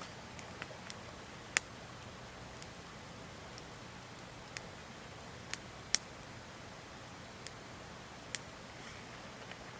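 Wood campfire crackling: scattered sharp pops and snaps from the burning wood, about half a dozen clear ones, over a steady faint hiss.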